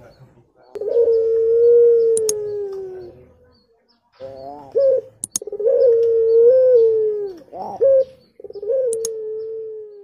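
Puter pelung, a long-voiced Indonesian variety of the domestic ringneck dove, cooing. It gives three long drawn-out coos, each held at a steady pitch for a couple of seconds and dropping away at the end, with shorter notes between them.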